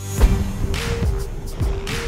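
Background music with a steady beat: heavy kick drums and a bass line stepping between two notes, coming in with a loud hit about a quarter second in.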